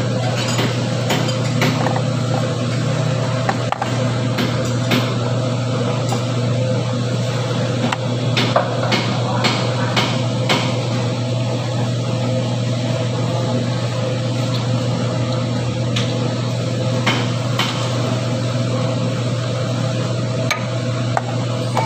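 Scattered metallic clicks and knocks of hand tools and parts as a ribbed drive belt is worked onto the pulleys of a diesel engine, over a steady low hum.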